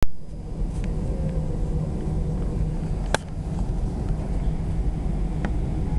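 Steady low rumble of an Airbus A319's engines heard inside the passenger cabin, with one sharp click about three seconds in.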